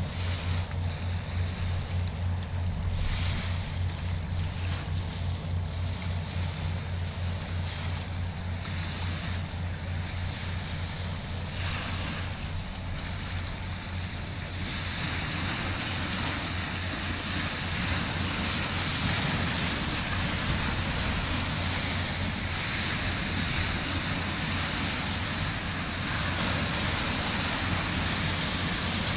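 Low, steady, fast-pulsing throb of a boat engine on the river, with wind on the microphone and water noise that grow louder about halfway through.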